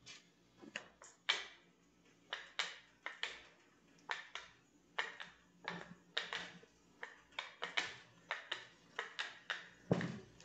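Plastic film crackling in short, irregular snaps as pastry dough lying on it is folded and pressed by hand, about two snaps a second. There is a duller knock near the end.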